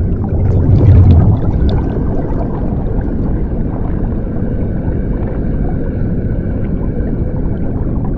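Muffled, rumbling rush of water as heard underwater, loudest about a second in, with faint gurgling.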